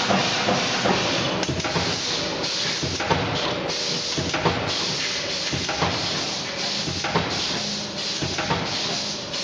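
Automatic fan guard spot welding machine in its working cycle: a steady mechanical clatter with bursts of hiss, broken by sharp clacks about every second and a half as each radial wire is fed, cut and spot-welded onto the ring.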